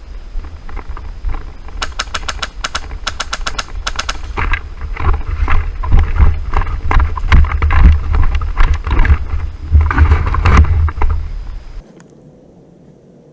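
Low wind rumble on the camera microphone. About two seconds in, a rapid run of sharp, evenly spaced shots from an airsoft gun lasts a couple of seconds. It is followed by loud irregular thumps and knocks from the player moving, and the sound cuts off abruptly near the end.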